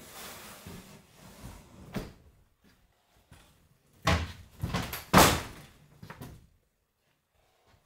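A run of hard wooden knocks and bangs from doors or furniture being handled, with a single knock about two seconds in and a cluster of loud knocks around four to five seconds in.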